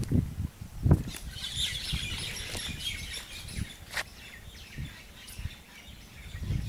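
Small birds chirping and twittering in the trees, mostly in the first half, over irregular low thumps, the loudest about a second in, and a single sharp click about four seconds in.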